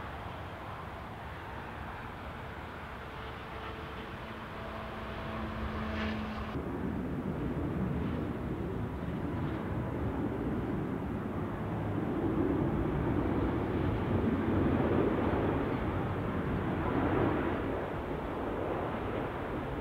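Jet airliner arriving to land, its engine noise swelling to its loudest in the latter half as it passes the spotting point.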